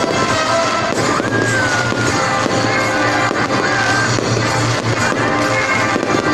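Loud music playing steadily with a sliding melody line. A few fireworks bangs are mixed in underneath.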